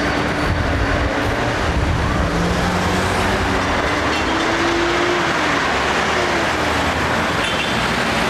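Hong Kong double-deck electric tram running past close by in street traffic: a steady rumble of motor and wheels on rails. A faint whine rises through the middle and then falls away.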